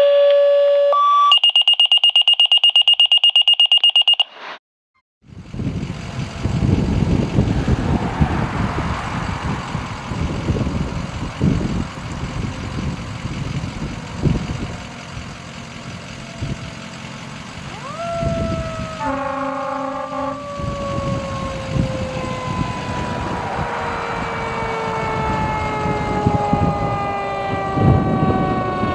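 Electronic alert tones open the clip: short steady tones, then a high tone pulsing rapidly for about three seconds. After a brief gap, fire apparatus engines and traffic rumble. About 18 s in, a mechanical siren winds up quickly and then coasts down slowly, with a horn blast just after it winds up.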